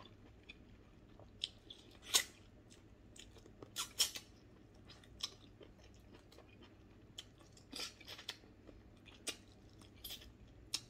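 Close-up mouth sounds of someone eating chicken by hand: chewing with irregular sharp clicks and crunches, the loudest about two and four seconds in.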